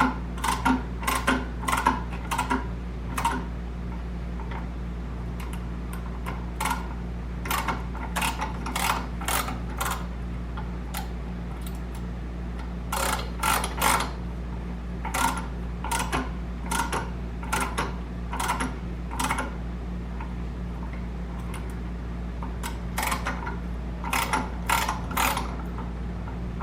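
A steel thread tap being turned by hand in a drill press as it cuts threads into metal, giving bursts of sharp clicks and ticks every few seconds as it cuts and is backed off to clear the chips. A steady low hum runs underneath.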